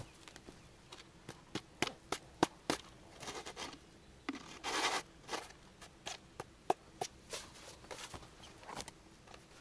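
Close handling noise: irregular rustling and scraping with scattered sharp clicks and taps, and a longer rustle about four and a half seconds in.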